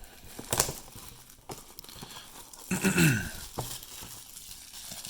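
Plastic wrapper of a trading-card pack crinkling and tearing open, with small handling clicks and a brief murmur about three seconds in.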